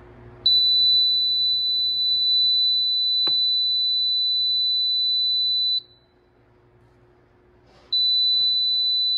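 Warning beeper of a BOYO VTL17AI AI backup camera kit sounding a steady high-pitched tone, the alarm that a detected person or object is in the camera's warning zone. The tone starts about half a second in, cuts off after about five seconds and comes back near the end, with a single click about three seconds in.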